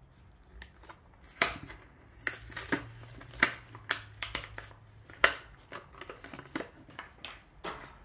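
Hot Wheels blister pack being opened by hand: the plastic bubble and cardboard card crackle and tear in a string of sharp, irregular snaps and rustles.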